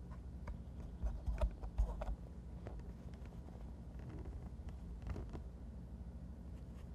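Soft bumps and small clicks of handling noise on the camera, loudest between about one and two seconds in, over a low steady hum.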